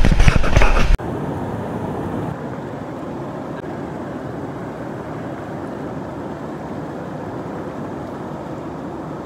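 Wind buffeting the microphone for about a second, then an abrupt cut to a steady, even rushing noise.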